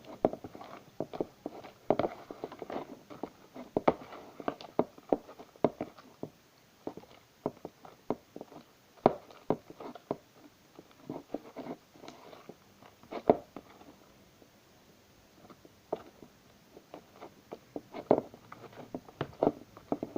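Hands squeezing and kneading sticky, half-activated slime, giving irregular wet squelches and sharp little clicks and pops, busier in the first half and sparser for a stretch later. The slime is still gooey and snot-like, not yet fully activated.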